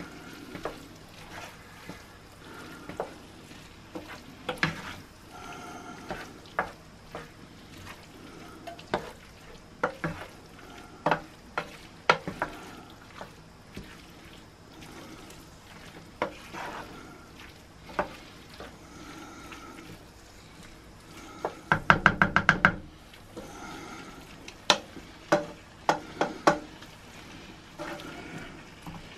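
A wooden spoon stirring diced meat and vegetables in a sizzling non-stick frying pan: a soft frying hiss with scattered knocks and scrapes of the spoon against the pan, and a quick run of rapid loud taps about three quarters of the way through.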